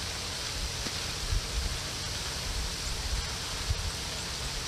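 Steady outdoor hiss, with wind buffeting the microphone in uneven low rumbles several times.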